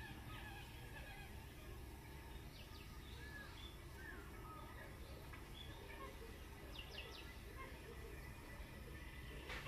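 Faint ambience: scattered short bird chirps over a low steady hum, with a brief knock near the end.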